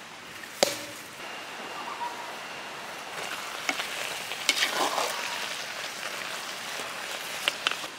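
Jackfruit curry sizzling in an earthen pot over a wood fire while a ladle stirs it, with clicks and scrapes of the ladle against the pot through the second half. A single sharp knock comes under a second in.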